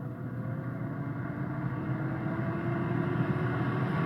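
Air fryer running at 400 degrees: a steady fan hum and rush of air with a faint tone slowly rising in pitch, cutting off suddenly at the end.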